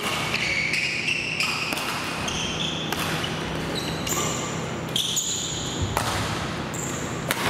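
A badminton rally in a gym hall: rackets hitting the shuttlecock with sharp cracks every second or so, and court shoes squeaking on the wooden floor.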